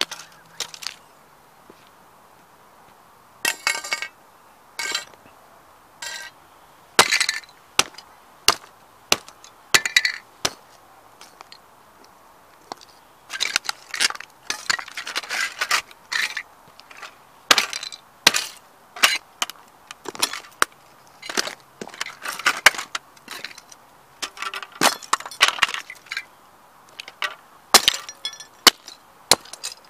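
Boots stomping and grinding the broken plastic pieces of a model Ferrari toy car on asphalt: sharp cracks and snaps, with stretches of crunching and clinking shards, in irregular bursts with short pauses between.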